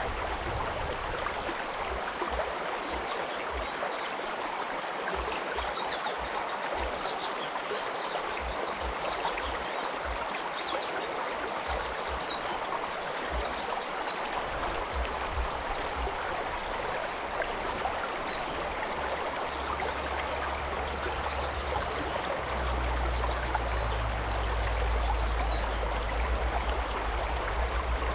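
Stream water rushing and babbling in a steady, even wash. From about two-thirds of the way in, a low rumble comes in underneath and grows louder near the end.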